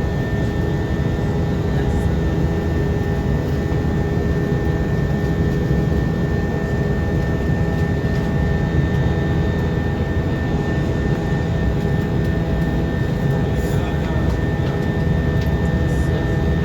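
Steady airplane cabin noise: the constant low rush of the engines and airflow heard from inside the cabin, with a thin steady whine running through it.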